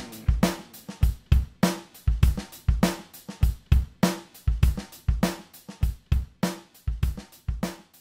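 Rock music track: a drum kit alone playing a steady beat of kick drum, snare and cymbals, about three hits a second.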